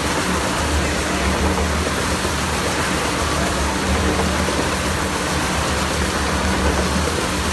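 Motorcycle engines running steadily inside a wooden wall-of-death drum, a loud unbroken din with no sharp revs.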